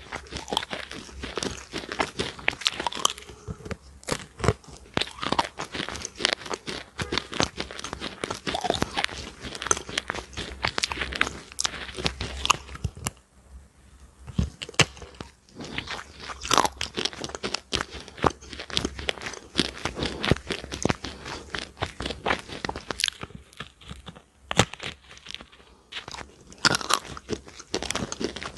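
Close-miked biting and chewing of a hard, brittle chunk: a dense, irregular run of crunches and crackles, with a short pause about halfway through.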